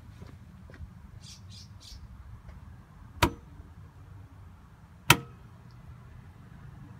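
Two sharp clunks about two seconds apart from the solenoid relays of a Southwire 41300 automatic transfer switch as shore power is unplugged and the switch changes over, over a faint low hum.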